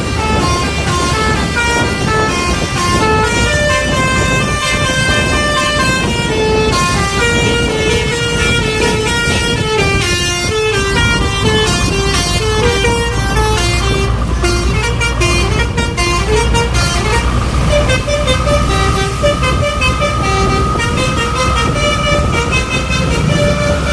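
Basuri telolet multi-tone bus horn playing a quick melody of short stepped notes, over the low running of the bus engine. In the last few seconds one note is held longer.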